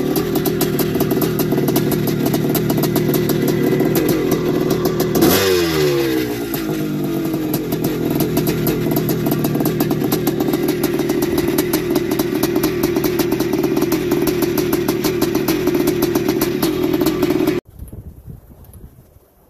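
1981 Suzuki RM465's big-bore single-cylinder two-stroke engine running steadily on its stand, with one quick blip of the throttle about five seconds in that falls straight back. The engine sound cuts off suddenly near the end.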